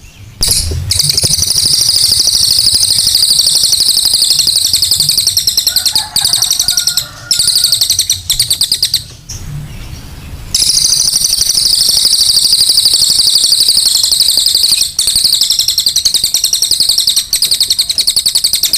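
A cililin bird singing its rough song: a loud, very rapid, high-pitched chattering trill. It pauses briefly a little before the middle, then resumes and carries on unbroken.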